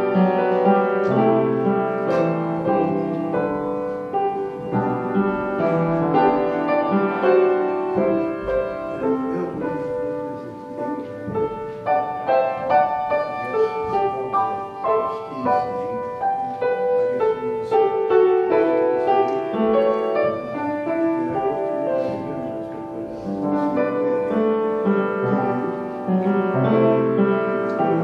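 Solo upright piano playing, with held chords under a melody line; the playing softens a little partway through and then swells again.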